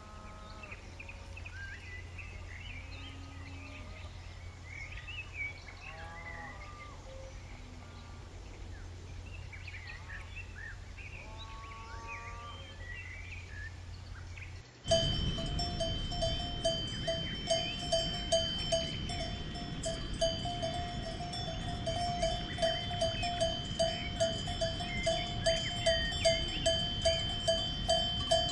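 Birds chirping over a steady low hum, then about halfway through a cowbell starts clanking in an even rhythm, about two strokes a second, as a grazing cow moves its head.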